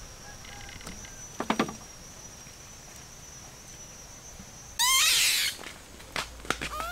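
Monkey squealing: a loud, shrill squeal with quick rising chirps about five seconds in, then a few short rising calls near the end, over a steady high thin whine.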